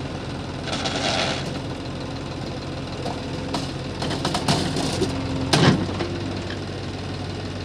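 Sonalika DI-740 tractor's diesel engine running steadily while the tractor sits stuck in deep mud. A brief hiss comes about a second in, and a sharp knock about five and a half seconds in.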